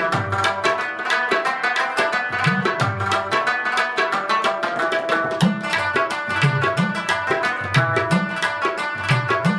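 Afghan rubab instrumental music with tabla: a quick plucked melody over a steady tabla rhythm, its low drum strokes bending upward in pitch.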